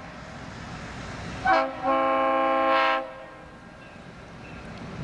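Reading and Northern diesel locomotive's air horn: a short blast about a second and a half in, then a longer blast of about a second, over a low rumble.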